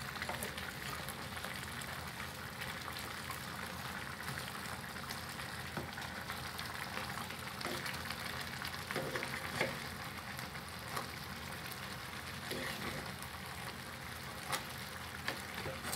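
A pot of shrimp, crab and potatoes cooking on the stove: a steady sizzle, with a few faint clicks now and then.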